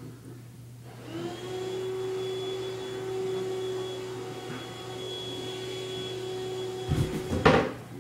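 A steady, motor-like hum starts about a second in and runs on evenly, then cuts off with a burst of loud knocks and rattles near the end.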